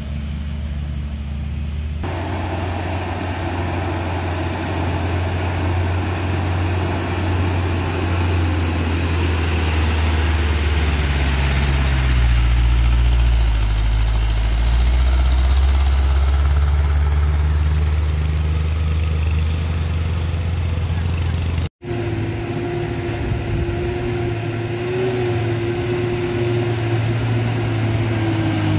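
Diesel truck engines pulling slowly up a steep climb: a loud, low drone whose pitch dips and rises again partway through. A short dropout about two-thirds of the way in is followed by another truck's engine with a steady higher whine over it.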